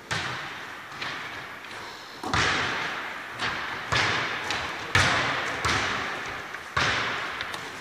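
A basketball thudding on a wooden gym floor, with about nine sharp, irregular impacts, each ringing on in the echo of a large hall.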